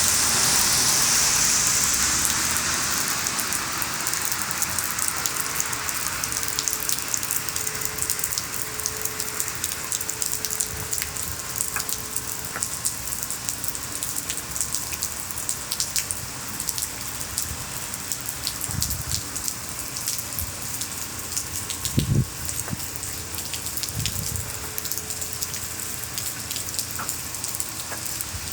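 Steady rain falling, with many separate drops striking a surface, a little heavier in the first few seconds. A few short low thuds come in the last third, the loudest about two-thirds of the way through.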